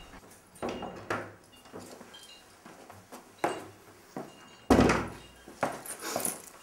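Wooden front door pulled shut with a loud thud a little past halfway, among a few lighter knocks and clicks.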